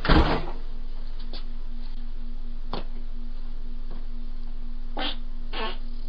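A single short, low, rough burst of breaking wind, a fart picked up through a doorbell camera's microphone. After it the camera's steady low electrical hum runs on with a few faint clicks.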